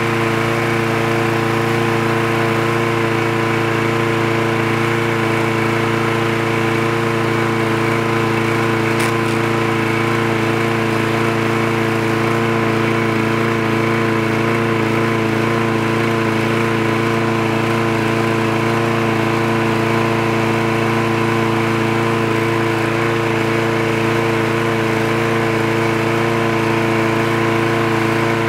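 Briggs & Stratton engine on a Craftsman walk-behind lawn mower running at a steady speed, its pitch unchanging throughout, with one brief click about nine seconds in.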